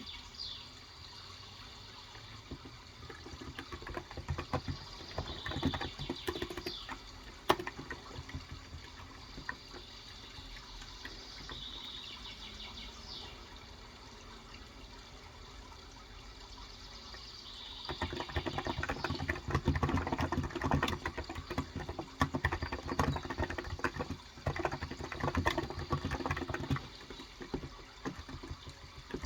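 Typing on an electrostatic capacitive (Topre-style) tenkeyless keyboard with light 35 g switches: rapid soft key clicks in two spells, a short one early and a longer, louder one from about two-thirds of the way in. Under it runs a steady sound of flowing water, with a few short high bird chirps between the spells of typing.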